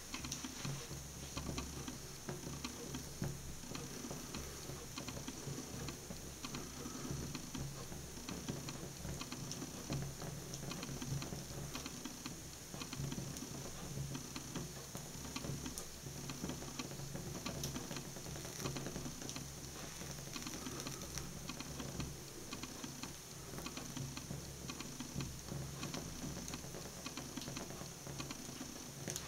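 Burning fabric slip-on ballerina shoe crackling, a steady run of small irregular clicks and pops as the flames eat into it.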